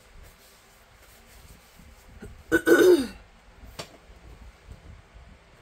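A person clearing their throat once, a short harsh sound falling in pitch about two and a half seconds in, followed by a small click; otherwise only faint handling noise.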